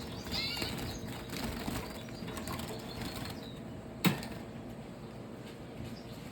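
Caged small birds giving a brief chirping call about half a second in, over light fluttering and rustling in the cage, with one sharp knock about four seconds in.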